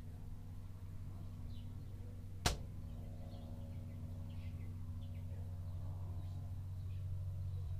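A steady low hum that slowly grows louder, with faint bird chirps and one sharp click about two and a half seconds in.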